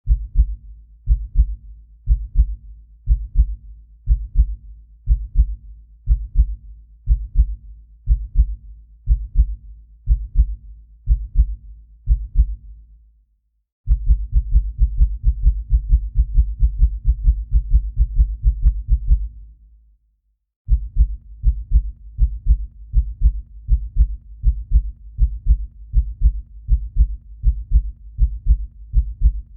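Heartbeat sound effect: low double beats (lub-dub), about one a second for some thirteen seconds, then, after a short break, a much faster run for about six seconds that fades out. After another short gap it settles into a moderate, steady pace.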